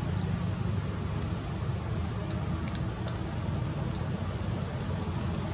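Steady low background rumble with a few faint, short high ticks scattered through it; no monkey calls.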